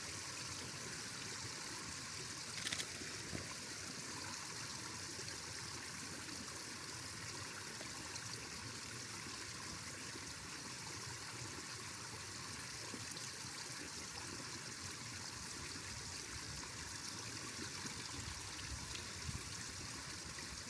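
Water running steadily at the base of a frozen waterfall, an even trickling rush under and around the ice. A single short click about three seconds in.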